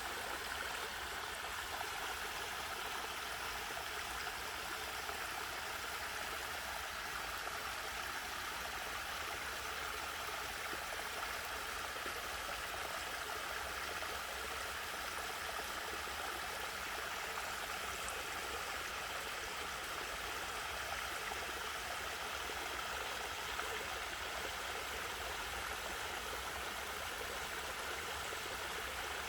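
Mountain stream water flowing and splashing steadily.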